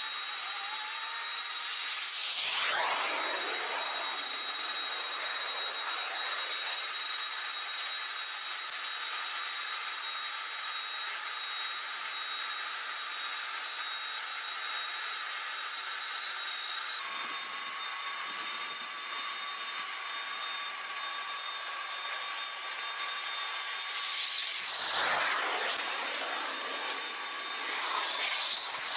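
Steady high-pitched jet turbine whine and hiss on an airfield apron, with a thin steady tone riding on top. It swells briefly about two seconds in and twice more near the end.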